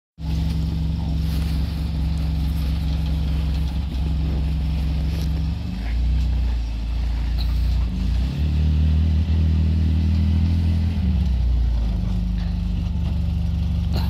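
Side-by-side UTV engine running with a steady low hum. Its pitch shifts about halfway through and rises for a few seconds as the machine pulls forward with its snow plow, then settles back.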